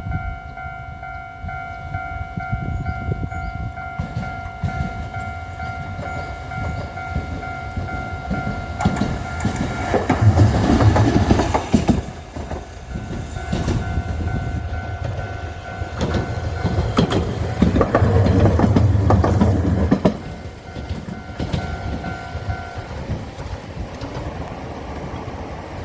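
A railway level-crossing alarm rings a steady electronic tone while two Kagoshima City trams pass in turn. The first goes by about ten seconds in and the second about seventeen seconds in, each a loud stretch of wheel and motor noise lasting two to three seconds. The alarm stops about 23 seconds in, once both trams have cleared.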